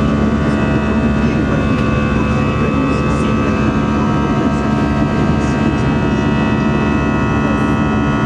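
Jet airliner engine and airflow noise heard inside the passenger cabin during the climb after take-off: a loud, steady rush with several steady whining tones over it.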